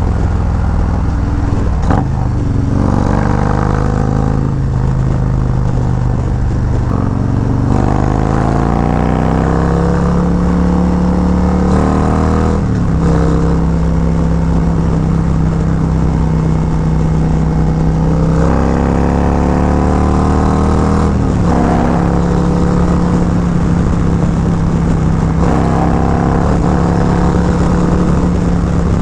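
Harley-Davidson Road Glide's Milwaukee-Eight V-twin running through a Khrome Werks 2-into-1 exhaust while riding. The engine note holds steady while cruising, then rises in pitch and drops back at gear shifts several times.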